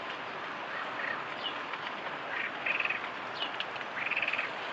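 Lakeside outdoor ambience: a steady background hiss with a few small chirps and two short, rapidly pulsing animal calls, one about halfway through and one near the end.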